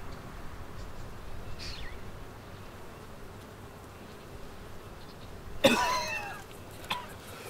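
A teenage boy coughing and spluttering on cigarette smoke, a sudden loud cough-like outburst about two thirds of the way through that fades within half a second: his first drag of a cigarette. Before it only faint background hiss with one short high chirp about two seconds in.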